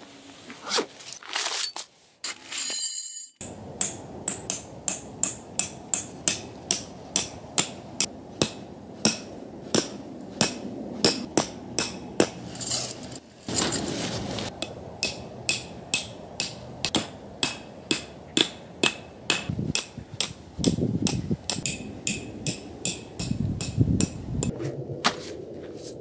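Tent pegs being hammered into the ground with a peg hammer: a long run of sharp, metallic strikes, nearly two a second, after a brief rustle of gear near the start.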